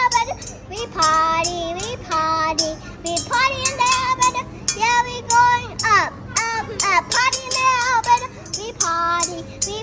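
Young children singing a song, with sharp percussive taps sounding along throughout.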